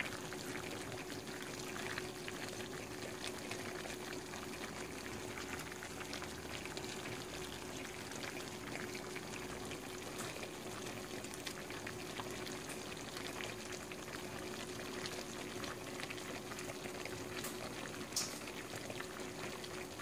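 A stainless pan of paksiw na bangus (milkfish stew) simmering on the stove: a steady, quiet bubbling and crackle. Under it runs a faint steady hum, and there is a single brief tick near the end.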